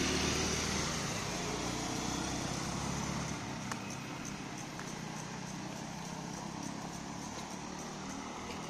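Road traffic: an engine hum fades away over the first three seconds, leaving a steady distant traffic rumble.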